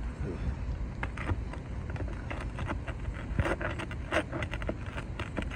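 Asphalt roof shingles being pried up to pop their nails: scattered scrapes and clicks, thickest about three and a half seconds in, over a steady low rumble.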